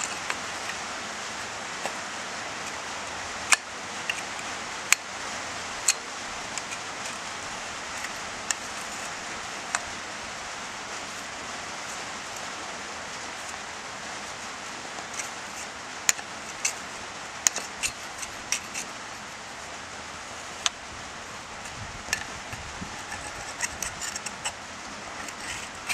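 Steady patter of rain on a roof, with scattered sharp clicks and scrapes of a hoof pick working hard, caked mud out of a horse's hoof, coming more often in the second half.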